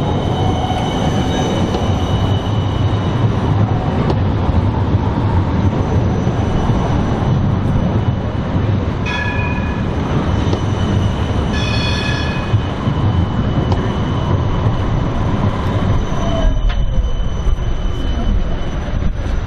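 Siemens Combino trams running on street track: a steady rumble of wheels and running gear with a thin high squeal from the rails. Two short bell rings come about 9 and 12 seconds in, and near the end there is a falling whine as a tram slows.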